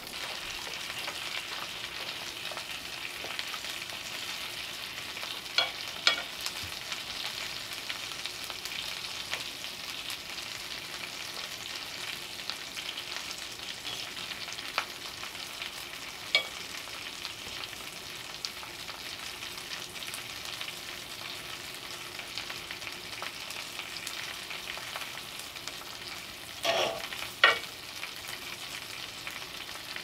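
Trout fillet frying in a cast iron skillet: a steady sizzle. Sharp knocks come as the pans are handled, a couple about six seconds in, one in the middle, and the loudest pair near the end.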